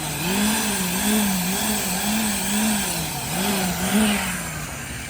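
A small engine running, its pitch wavering up and down about twice a second, fading near the end.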